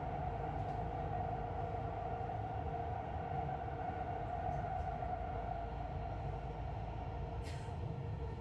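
Dubai Metro train running at speed through a tunnel, heard from inside the front car: a steady low rumble with a steady whine over it, and a brief hiss near the end.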